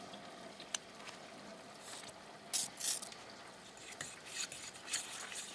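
A metal spoon stirring ketchup into a thick mayonnaise-and-horseradish sauce in a bowl: faint, scattered scrapes and clicks of the spoon against the bowl.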